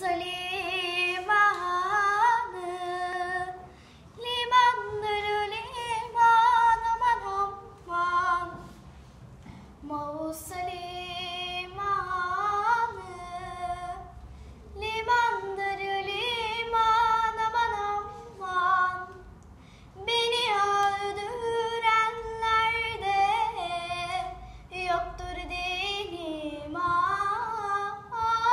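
A young girl singing a Turkish folk song (türkü) unaccompanied, in phrases of a few seconds with short breaths between, her held notes ornamented with wavering turns.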